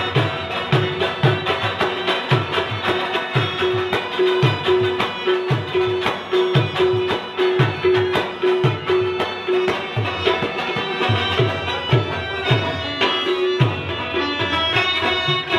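Live Pashto folk music: a plucked rabab and a harmonium carry the melody over tabla, with deep drum strokes repeating in a steady rhythm about twice a second.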